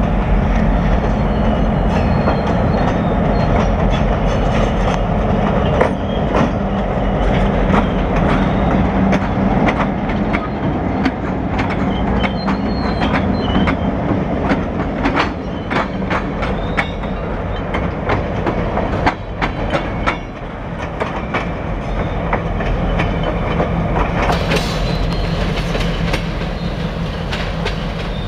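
Freight train passing close by: the diesel locomotives' engines run with a steady low drone while the wheels click over the rail joints, and the tank cars rattle along behind.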